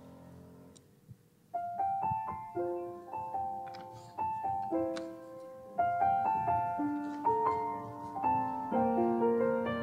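Piano starting about a second and a half in, playing struck chords under a slow melody of single notes that ring and fade.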